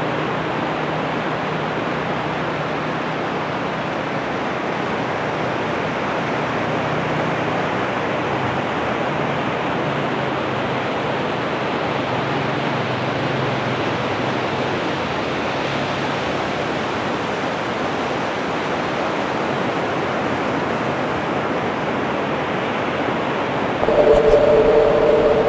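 Steady rush of surf breaking on the beach, mixed with wind. Near the end, a louder steady tone with two pitches at once sounds briefly.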